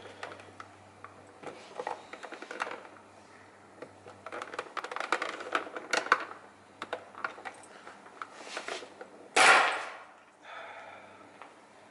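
Plastic clips of a BMW M2 wing mirror cap clicking and creaking as the cap is worked off by hand with no tools: a run of small irregular clicks, then one much louder snap about nine and a half seconds in.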